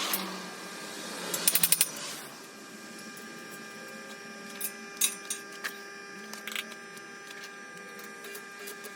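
Light metallic clicks and clinks: a quick run of about six ticks a little over a second in, then a few single clicks, over a steady hum.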